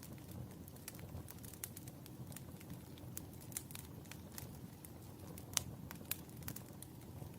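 Wood fire burning in a fireplace: a steady low rumble of flames with irregular sharp crackles and pops, one louder pop a little past halfway.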